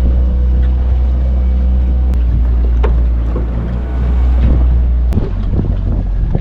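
Fishing boat's motor running with a steady low drone; its note changes with a click about five seconds in.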